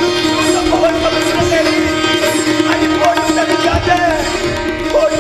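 Live Indian folk-style music: a sitar plays a melody with sliding, bending notes over a steady held drone, with hand-drum strokes underneath.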